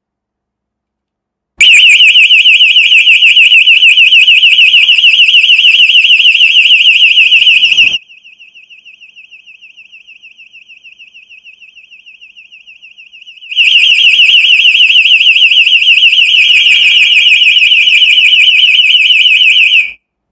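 Small electronic alarm siren sounding a loud, high, rapidly warbling tone. For about five seconds in the middle it turns faint, shut inside a small lidded box as a demonstration of sound insulation, then it is loud again when the box is opened and cuts off suddenly near the end.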